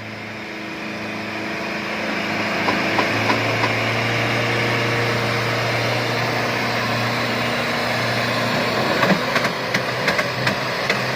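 Off-road 4x4 engine running steadily while winching, growing louder over the first few seconds, with a series of sharp knocks and clicks in the last couple of seconds.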